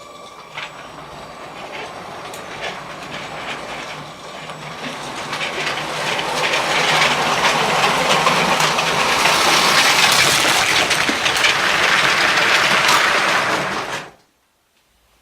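A train rolling along its track, its wheels clattering over the rail joints, growing steadily louder as it approaches, then cut off abruptly near the end.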